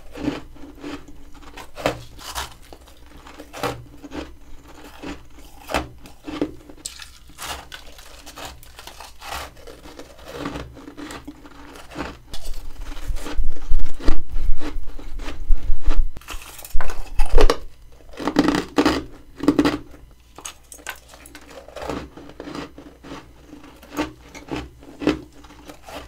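Close-up bites and chewing of chunks of freezer frost: a string of crisp crunches, with a louder, denser run of crunching in the middle.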